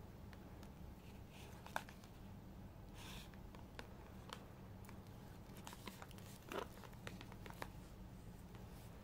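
Thin clear plastic food tray being handled, giving faint scattered clicks and crinkles over a low steady hum.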